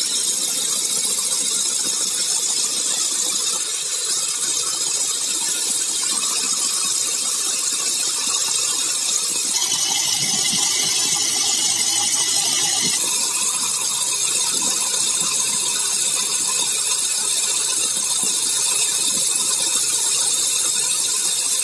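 Electric rotary hammer drilling into a wall in hammer mode, running steadily under load. Its tone shifts for about three seconds near the middle.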